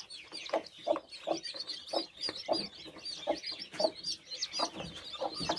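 A broody Leghorn hen clucking, an even run of short low clucks about two or three a second, the call that gathers her brood. Newly hatched chicks peep high and fast throughout.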